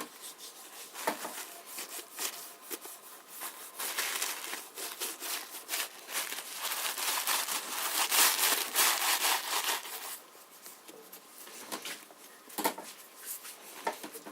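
Hand rubbing sewing machine oil into the crazed, chalky painted finish of a White Peerless sewing machine: a scratchy, scrubbing rub that grows busier and louder in the middle, with a light knock near the end.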